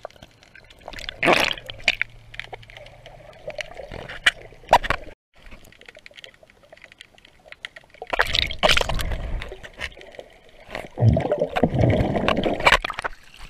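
Muffled water sloshing and gurgling around a camera held underwater, with scattered sharp clicks and knocks and two louder rushes of water in the second half.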